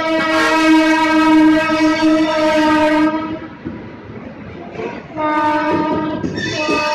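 Train horn sounding: one long steady blast of about three seconds, then after a short pause two more blasts in quick succession, the last higher in pitch.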